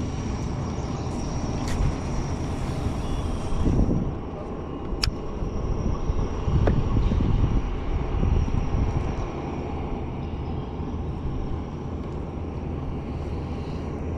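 Small boat motor running steadily as the john boat moves, a thin whine over a low rumble, with louder low rumbles about four and seven seconds in.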